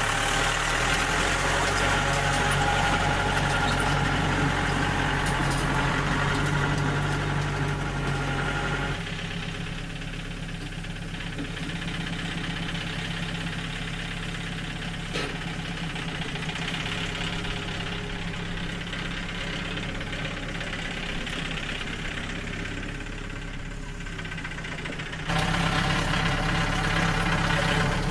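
Sawmill engine idling steadily. It drops quieter about nine seconds in and comes back louder with a sudden step near the end.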